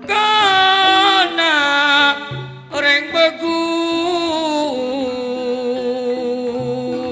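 A male singer sings a long, wavering melismatic phrase of an East Javanese jula-juli song through a microphone over gamelan accompaniment. About two-thirds of the way through, he settles into one long held, quavering note.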